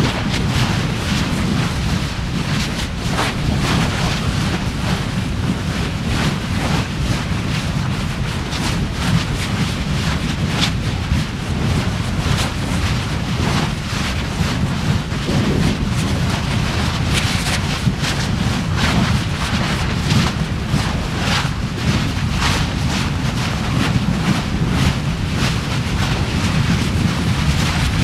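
Volcanic fissure eruption at the Fagradalsfjall vents: a steady low rumble with frequent sharp crackles and pops throughout, and wind buffeting the microphone.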